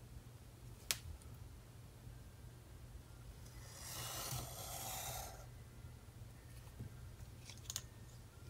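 A Sharpie marker drawn along a plastic ruler across paper in one stroke of about two seconds, about halfway through. A sharp click comes about a second in and a few small clicks near the end.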